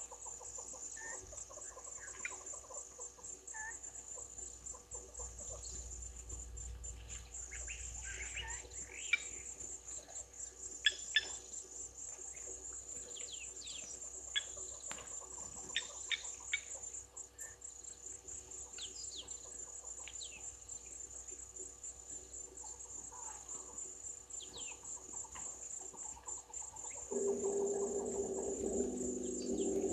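Steady high-pitched trilling of insects such as crickets, with scattered short bird calls and a few sharp clicks in the middle. Near the end a louder, steady low hum with several tones comes in.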